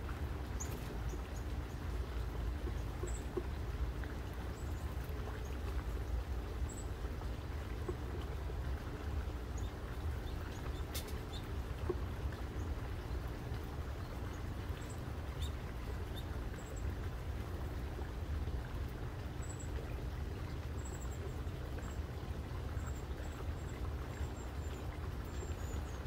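Outdoor backyard ambience: a steady low rumble with faint, high, short bird chirps scattered through, mostly in the second half, and a single sharp click about eleven seconds in.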